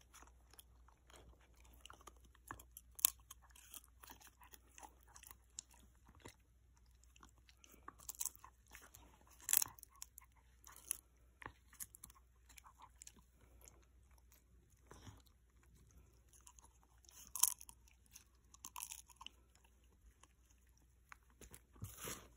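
A Shikoku dog biting and chewing a piece of dried fish: irregular crisp crunches with pauses between, a few sharper ones standing out about three seconds in, near the middle, and late on.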